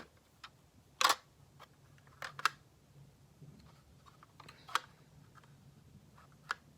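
Lego plastic pieces clicking and knocking as the puzzle box is handled, with a handful of separate sharp clicks, the loudest about a second in.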